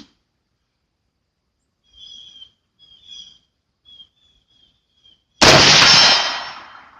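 A single shot from a .300 Blackout AR-15 rifle about five and a half seconds in, loud and sudden, with a long echoing decay. Before it, small birds chirp softly.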